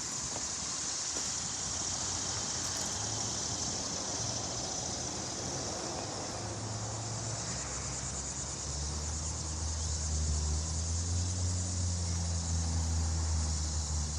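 Steady high-pitched buzzing of insects, with a low steady hum coming in and growing louder from about halfway through.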